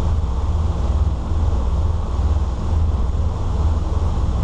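Low, steady drone of a 2000 Sea Ray 34-foot cabin cruiser's engines running, mixed with the rush of wind and choppy water against the hull.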